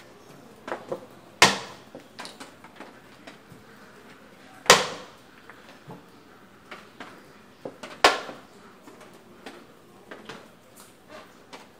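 Checker pieces set down hard on a wooden checkerboard: three loud, sharp clacks about three seconds apart, with lighter clicks between them as pieces are moved and taken off the board.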